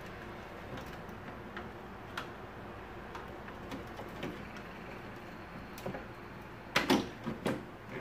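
Light clicks and taps of plastic vacuum-cleaner parts being handled and fitted together during reassembly, with a louder run of knocks about seven seconds in.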